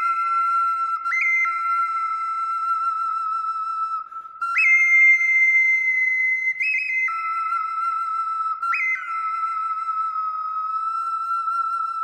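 Two-hole Aztec bird whistle, whose sound is likened to an eagle's, blown in long held notes. A steady whistled tone jumps up to a higher note and drops back four times: about a second in, again just after a short break near four seconds, and twice more further on.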